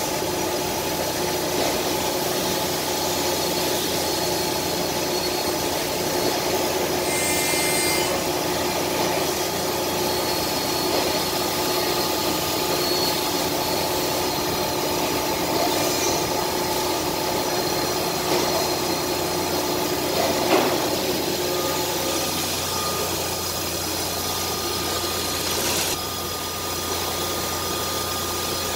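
Thermwood CNC router running as it works a clamped part: a steady machine whine of several tones over a hiss. A short sharp clatter comes about twenty seconds in, after which the whine changes to a higher tone.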